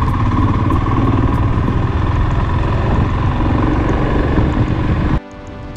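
Motorcycle engine running at road speed with wind rush, heard from the rider's seat. Near the end it cuts off suddenly and music takes over.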